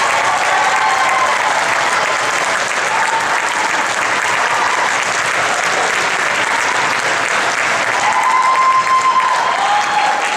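Concert audience applauding steadily, with cheering whoops rising above the clapping near the start and again about eight seconds in, as the violin soloist takes the stage.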